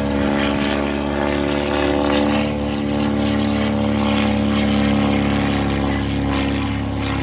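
Propeller engine of a World War I-style biplane droning steadily overhead as it flies past.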